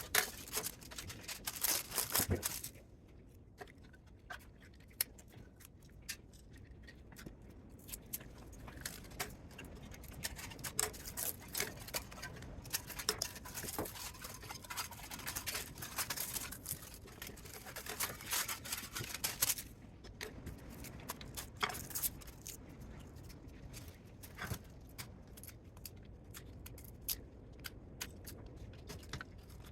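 Irregular light clicks and scrapes of hand work on small parts, busiest in the first couple of seconds and again through the middle.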